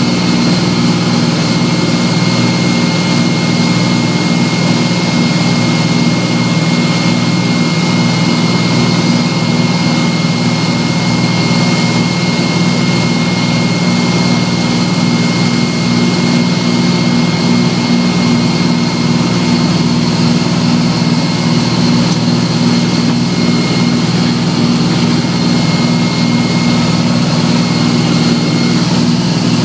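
A steady engine drone at constant speed, low and even, with a thin high whine running over it.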